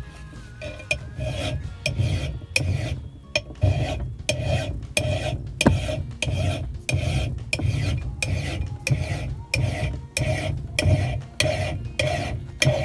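Flat file rasping across a steel axe bit to sharpen the edge, in a long run of steady, evenly paced strokes, about two to three a second.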